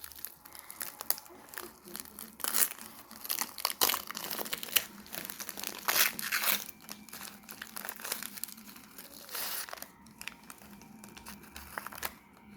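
Foil wrapper of freeze-dried astronaut ice cream crinkling irregularly as it is handled, with some tearing sounds.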